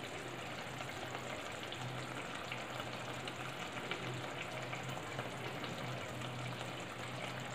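Paneer masala gravy simmering in a nonstick kadai on a gas stove: a steady bubbling sizzle with small crackles.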